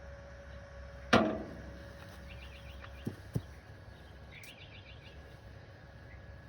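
A single sharp clank with a short ring about a second in, then two lighter knocks about two seconds later. Between them a bird chirps in short rapid series.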